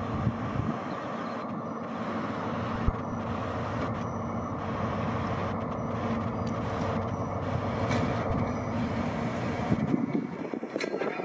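Class 43 HST power car's diesel engine running under power as the train pulls out, a steady drone with a few sharp knocks; about ten seconds in the low rumble drops away.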